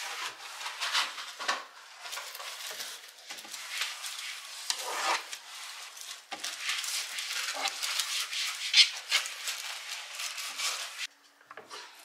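Paper towel rubbing and wiping along kitchen cupboard shelves, clearing out crumbs, in irregular scratchy strokes that stop about eleven seconds in.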